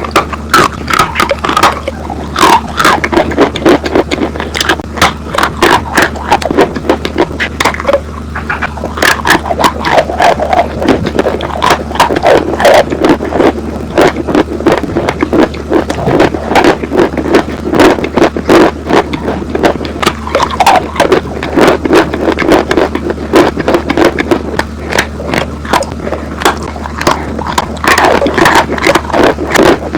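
Close-miked crunching and chewing of dry chalk and clay, a fast, dense string of sharp crunches and crackles that never lets up, over a steady low hum.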